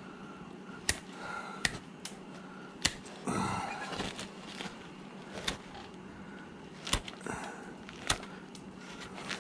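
Carving knife cutting into a wooden carving blank, each stroke snapping off a chip with a sharp click, about six over the span, with a brief louder rustle about a third of the way in.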